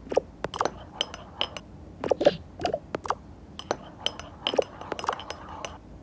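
A utensil stirring in a small pot, with irregular quick clinks and taps against its side, often two or three a second.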